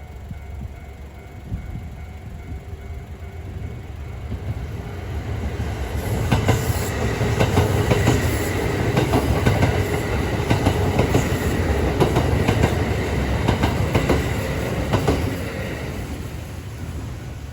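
Kintetsu 8600 series and 1233 series electric train passing over a level crossing: wheels clattering over rail joints with a low rumble, loudest for about ten seconds in the middle before fading. A level-crossing warning bell rings with a steady repeating tone.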